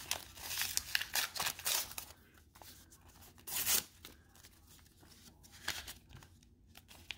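A paper envelope being torn open and handled: a quick series of short tearing and crinkling strokes in the first two seconds, another louder tear near the middle, then lighter rustling of paper.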